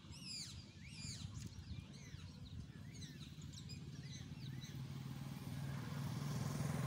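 Small birds chirping in quick downward-swept notes over the first few seconds, over the low hum of a motor vehicle's engine that grows steadily louder toward the end.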